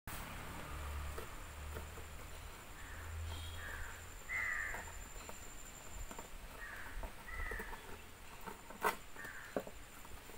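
Crows cawing a few times in the background while a large knife slits the packing tape on a cardboard box, with a sharp click near the end.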